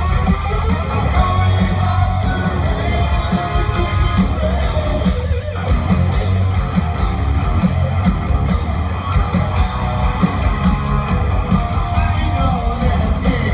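Heavy metal band playing live, loud: electric guitars and drums on a steady beat, with a singer's voice over them.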